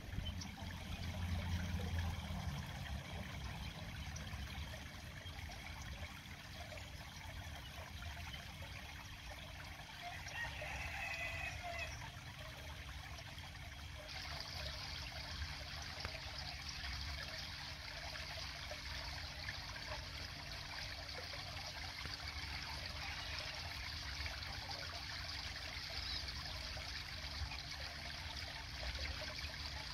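Water trickling steadily down a stacked-stone garden waterfall into a pond.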